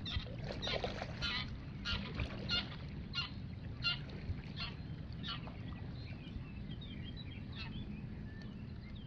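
Waterfowl calling in a quick run of short honks, about one every two-thirds of a second, that die away after about five seconds. Fainter bird chirps follow, over a low wind rumble on the microphone.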